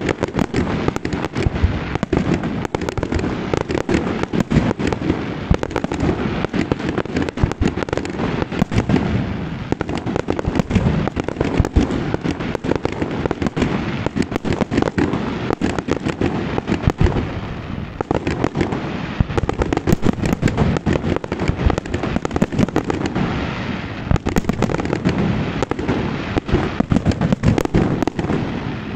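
Fireworks display: aerial shells and low-level fireworks going off in rapid succession, a dense, unbroken run of bangs.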